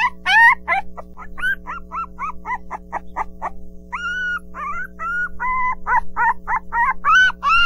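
A puppy yipping and whimpering in a quick run of short, high squeaky cries, some sliding upward in pitch, over steady background music.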